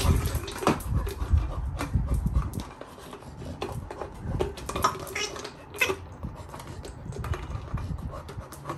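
Labrador puppy chewing and nosing a plastic toy ball, with irregular clicks and knocks of teeth on the ball and the ball on the tile floor.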